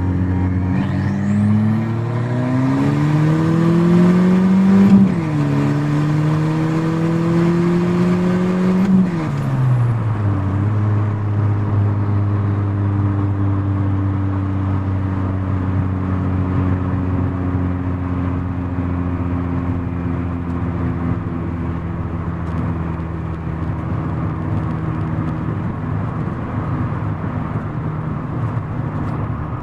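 Turbocharged 2.2-litre four-cylinder of a 1989 Ford Probe GT, heard from inside the cabin, accelerating hard with its revs climbing. It shifts up about five seconds in and again about nine seconds in, then cruises steadily with the engine note slowly falling.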